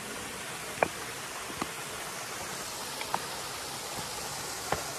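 Steady rush of stream water running through pools held back by stone barriers. Four brief sharp clicks are scattered through it.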